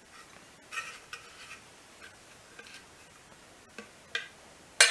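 Light metallic clicks and clinks of small metal horn-mounting parts being handled and turned around to fit. A few scattered taps, with a small cluster about a second in and the sharpest click near the end.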